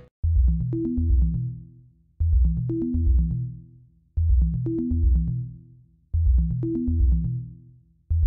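Electronic background music: deep bass notes and drum-machine hits in a short phrase that repeats about every two seconds, each time fading away before the next.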